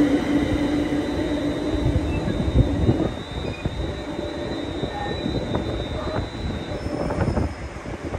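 Electric multiple-unit train moving along a station platform: a steady rumble of wheels on rail, with a high steady whine from about three seconds in to near the end and scattered clicks later on.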